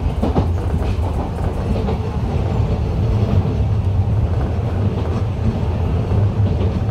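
Enshu Railway 2000 series electric train heard from inside the car, running along the line: a steady low rumble of wheels on rail, with a few clicks from the track near the start.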